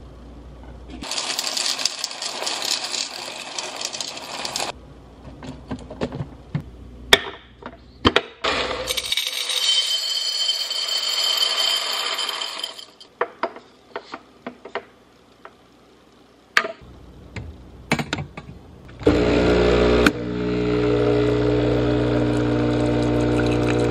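Coffee beans poured and rattling, with clicks and knocks from handling the grinder hopper and jars. About nineteen seconds in, an espresso machine's pump starts and hums steadily.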